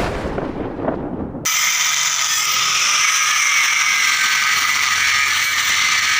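A fading intro sound effect, then from about a second and a half in, an electric grinder running steadily while its disc grinds into the steel of a truck rear axle shaft, giving a loud, high-pitched metallic screech.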